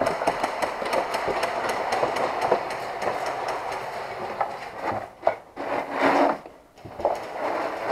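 Scraping and rubbing of clothing and gear against concrete and loose dirt, with many small knocks, as someone crawls into a narrow tunnel opening. It is dense and continuous at first, then breaks into a few separate louder scuffs in the second half.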